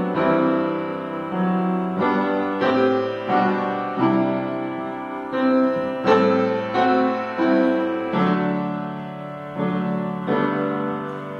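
Slow piano music: single notes and chords struck one after another and left to die away.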